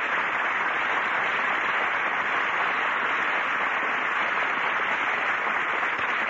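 Studio audience applauding steadily, heard on a 1952 radio transcription.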